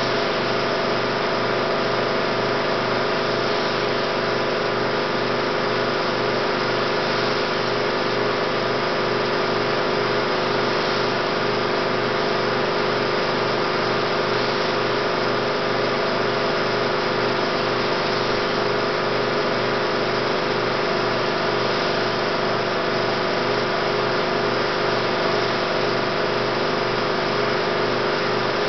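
16mm film projector running steadily: a constant mechanical whir with a fixed hum that does not change.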